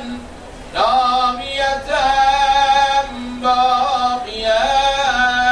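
A man's voice chanting an Arabic salawat (blessing prayer) in long, drawn-out melodic notes. After a short breath near the start come about four sustained sung phrases, each held steady with slight wavers in pitch.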